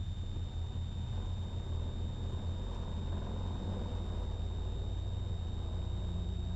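Light single-engine plane's piston engine and propeller at full takeoff power during a touch-and-go, a steady drone from inside the cockpit with a thin high whine held at one pitch.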